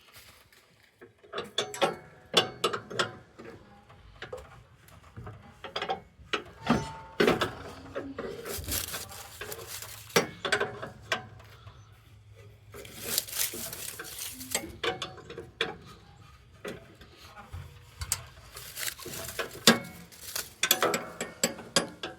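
Hand socket ratchet clicking in quick runs while bolts on a lawn mower deck are worked loose, with scattered metal clanks and knocks in between.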